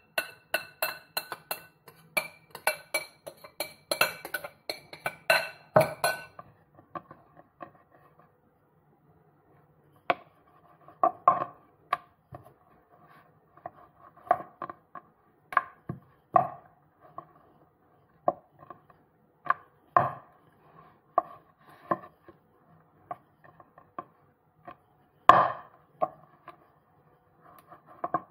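Wooden rolling pin knocking and rolling on a wooden board as balls of dough are rolled out flat, in irregular knocks. For the first six seconds a quick run of ringing clinks is louder than the knocks.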